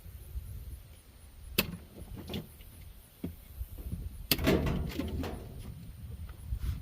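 A few sharp knocks, then a louder clattering rattle about four seconds in, as parts are pulled and worked loose while a scrap refrigerator is dismantled.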